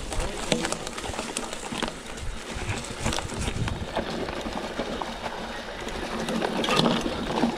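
Mountain bike rolling slowly over an overgrown trail through grass and brambles: a steady rustle from tyres and undergrowth, with frequent small knocks and rattles from the bike, a little louder near the end.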